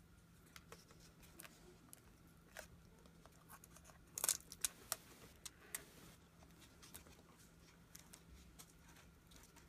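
Faint handling sounds of flexible LED tape light and Scotch tape being bent, pressed and repositioned: scattered small clicks and crinkles, with a short cluster of sharper ticks about four to five seconds in, over a faint steady hum.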